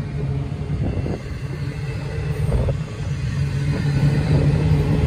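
Double-stack intermodal freight train rolling past: a steady low rumble of wheels on rail, with a couple of clanks about one second and two and a half seconds in.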